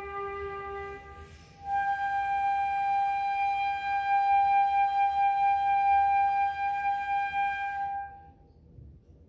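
Solo concert flute: a low note ends about a second in, and after a short pause the flute holds one long note an octave higher for about six seconds, the piece's final note, which then fades out.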